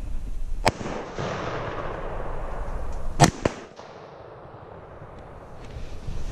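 Two shots from a Browning BAR semi-automatic rifle in .300 Win Mag, about two and a half seconds apart. The first is followed by a long echo that rolls away. The second is the loudest, with a smaller crack right after it.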